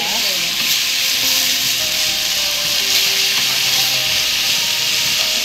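Wooden spatula scraping and stirring a thick flour-and-butter roux with onion across a nonstick frying pan, over a steady sizzle, as beef stock is worked in a little at a time to keep it from lumping.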